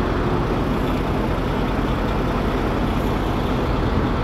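Heavy diesel truck engine idling with a steady rumble.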